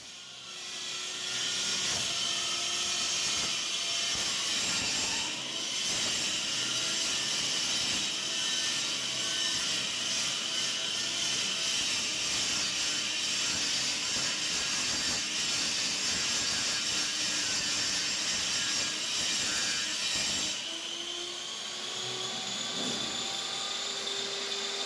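Electric miter saw running, its spinning blade cutting a spiral groove into a wooden dowel that is turned against it by a handheld electric drill: a steady high motor whine with gritty cutting noise. About twenty seconds in the cutting noise drops away and a lighter motor whine carries on.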